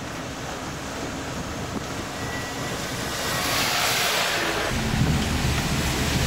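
Steady road and engine noise heard from inside a moving vehicle. About three to four seconds in, a truck passing close by brings a rush of noise that swells and fades, and a deeper engine rumble sets in near the end.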